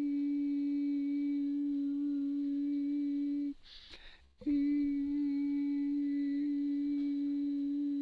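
A voice toning a long, steady 'ee' vowel on one held note as a sound-healing exercise. It breaks off about three and a half seconds in for a quick breath, then resumes on the same pitch.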